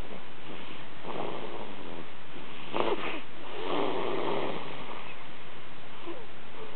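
A baby snoring: three noisy breaths about a second apart, the middle one sharper, then fainter breathing near the end.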